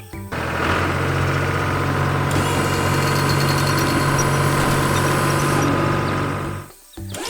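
Heavy construction-vehicle engine running steadily, as a cartoon sound effect. It starts just after the beginning, a thin high whine joins it in the middle, and it cuts off about a second before the end.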